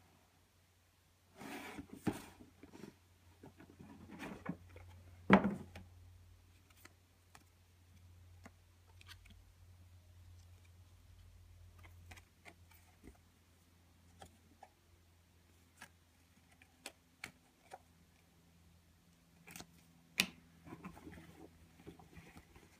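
Cardboard shoebox and its contents being handled by hand: a rustle and scrape about two seconds in, a sharp knock about five seconds in, then scattered light clicks and taps, with another click and rustling near the end.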